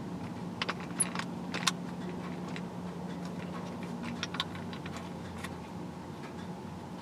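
Light scattered clicks and taps of a camera being handled and set up, most of them in the first two seconds, over a low steady hum.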